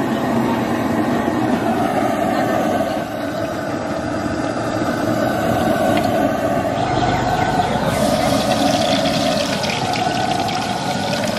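Steady mechanical rumble, like an engine or burner running. A crackling hiss joins about eight seconds in.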